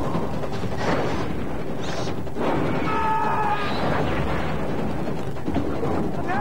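Science-fiction film sound effects: a dense steady rumble, with rushing sweeps about one and two seconds in and a short pitched cry about three seconds in.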